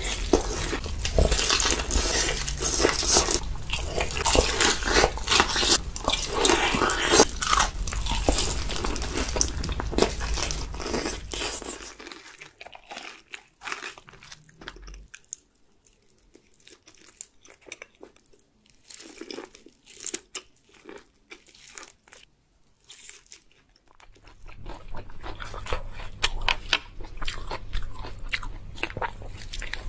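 Crunchy food being bitten and chewed close to the microphone, mukbang-style: dense crackling crunches at first, sparse quieter crunches through the middle, then denser crunching again near the end.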